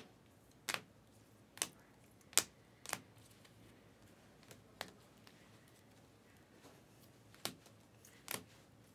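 Trading cards in plastic sleeves flipped one at a time through a stack, making about eight sharp, faint clicks at uneven intervals.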